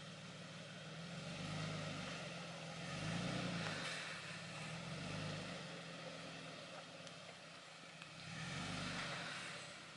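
Lifted Toyota Tacoma's engine running at low revs while crawling through deep ruts, swelling louder in four short bursts of throttle as the truck climbs over them.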